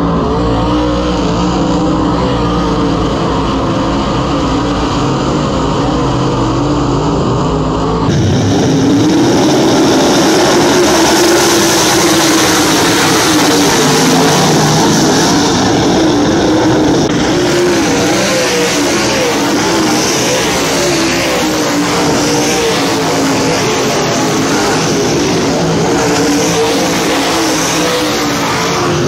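Dirt late model race cars' V8 engines at racing speed, the pitch rising and falling as they accelerate and lift. The sound changes abruptly about eight seconds in.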